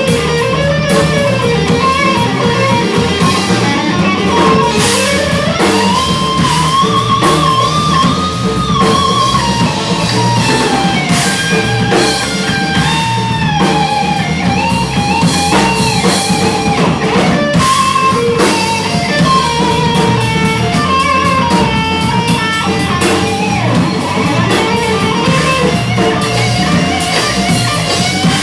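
Live rock band playing: an electric guitar carries a melody with bends and slides over drums and bass.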